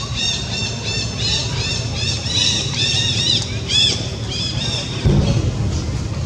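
A rapid run of short, high-pitched calls, each rising and falling, several a second, that stop about four and a half seconds in. A low thump follows about five seconds in.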